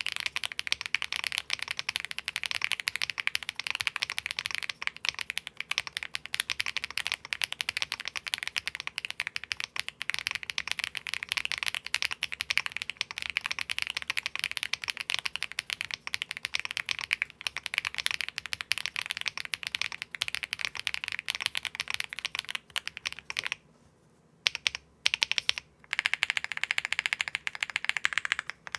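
Fast, continuous typing on an Akko M1 V5 mechanical keyboard, stock out of the box, with Akko Cilantro long-pole tactile switches, doubleshot PBT keycaps and an aluminium case. The keystrokes run densely with a brief pause a few seconds before the end.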